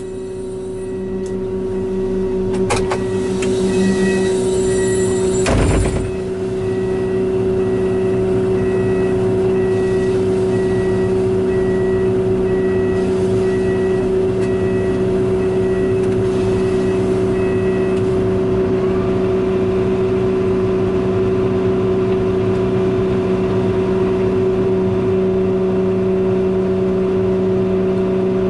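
Heavy construction machinery's diesel engine running steadily under load. A high, evenly repeated beeping sounds over it for the first half, and there is a loud knock about six seconds in.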